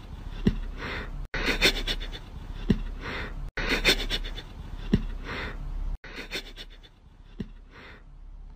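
A puppy's noisy breathing: short breath sounds with a brief faint squeak, in a pattern that repeats about every two seconds and is broken by short silent gaps.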